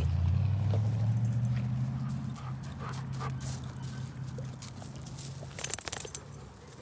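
Dogs moving and sniffing close to the microphone over a low steady rumble that fades over the first five seconds. A brief burst of jingling clicks comes about six seconds in.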